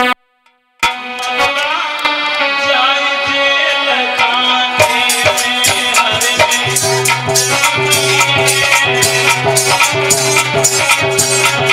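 Indian devotional music: a harmonium holding and moving between sustained notes, after a brief gap at the start. About five seconds in, rhythmic hand percussion with a shaker-like rattle joins on a steady beat.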